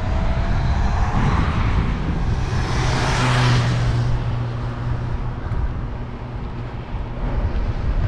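A car passes by on the road: its tyre and engine noise swells to a peak about three seconds in, then fades. Low wind rumble on the microphone runs underneath.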